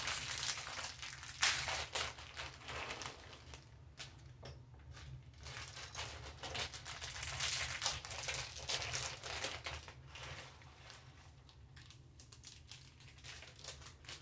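Thin plastic Lego parts bags crinkling and tearing as they are opened and handled, with irregular rustling and small clicks of plastic pieces being spilled and sorted on the table.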